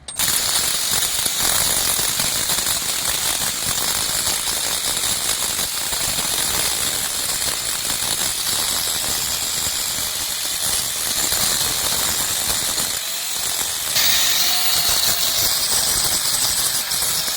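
Pneumatic impact wrench running continuously on a leaf-spring bolt, a loud rapid rattle with a strong hiss of air. It starts abruptly and gets a little louder near the end.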